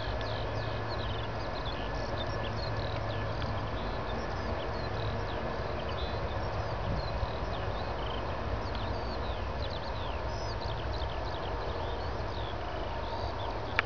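Boeing 747's four turbofan engines at takeoff power, heard at a distance as a steady rumble with a thin whine. Many short high chirps run over it throughout.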